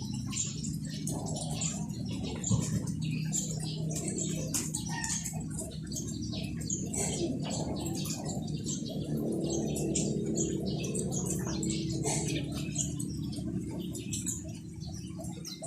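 Small birds chirping over and over, in many short high notes, above a steady low background hum.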